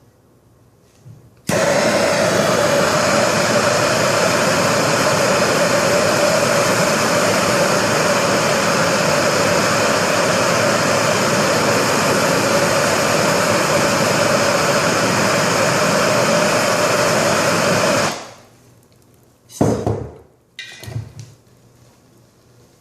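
Handheld gas torch lit and running with a steady roaring rush as its flame heats a copper pipe fitting for soldering; it starts suddenly about a second and a half in and shuts off near the end. A few short knocks follow.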